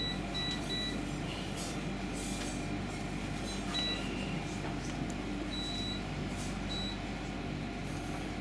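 Short electronic beeps from a cooker's control panel as the heat is set: three quick beeps at the start, then single beeps, one of them longer, over a steady low hum.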